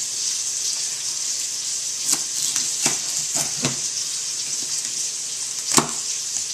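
Sausage frying in a pot, a steady sizzle throughout, with a handful of sharp knocks in the middle and near the end.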